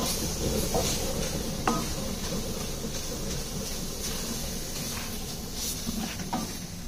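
Food cooking in an aluminium pan on a stove, a steady hiss, as a spatula stirs it, with a couple of short knocks of the spatula against the pan.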